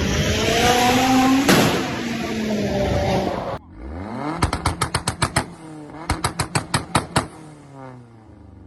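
Alfa Romeo MiTo engine revving, pitch climbing. After an abrupt change a few seconds in, two bursts of rapid sharp pops, about ten a second, ride over the engine as the revs swing.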